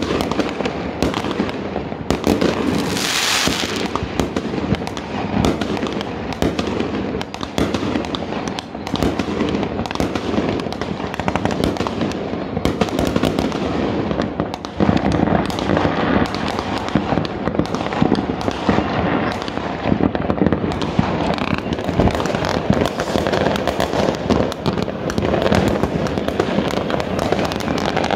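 Many fireworks going off at once: a dense, unbroken run of overlapping bangs and crackles, with a brief hiss about three seconds in.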